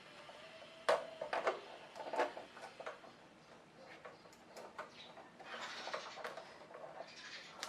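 Small plastic clicks, knocks and scraping as ring light parts are handled and pushed together while the mirror is fitted onto the light.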